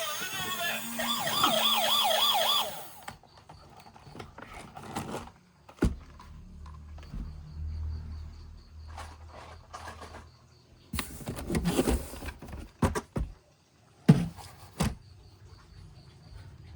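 A toy emergency vehicle's electronic siren warbles loudly for about three seconds, then cuts off. It is followed by scattered light clicks and knocks, with a cluster of sharper knocks near the end.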